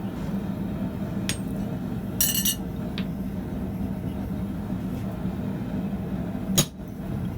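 Steel tools clinking at the anvil, with a bright ringing clink about two seconds in and a single sharp hammer strike on steel near the end, over a steady low hum.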